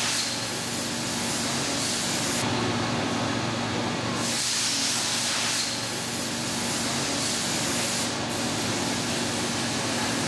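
Jets of silicone-and-water coolant spraying onto a machine tool as it cuts metal. It makes a steady hiss that is sharper for the first couple of seconds and again around five seconds in, over a steady machine hum.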